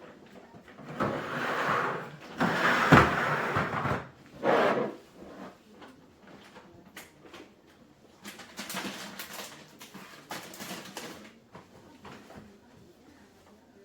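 Groceries being handled and put away: rustling and scraping of packages, with a sharp knock about three seconds in, then lighter crinkling a few seconds later.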